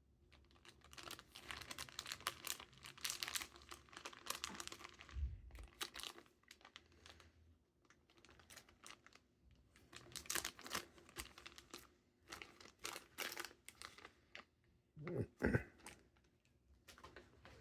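Packaging being handled and crinkled during an unboxing: two long spells of rustling and crinkling, a soft low thump about five seconds in, and a couple of low knocks near the end.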